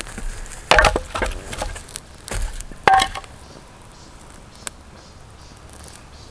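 Dry wood cracking and knocking: a cluster of sharp cracks about a second in, another about three seconds in, then a single click near five seconds.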